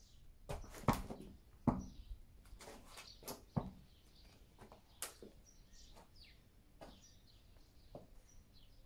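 Small birds chirping faintly throughout, with a string of sharp knocks in the first four seconds and another about five seconds in.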